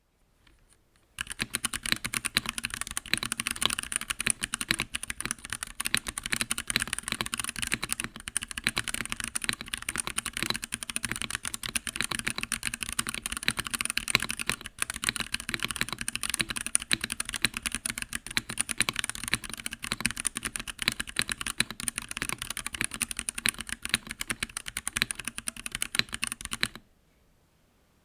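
Fast, continuous typing on a Womier K98 hot-swap mechanical keyboard with an acrylic case and pudding keycaps, dense key clacks with a couple of brief pauses. It starts about a second in and stops shortly before the end.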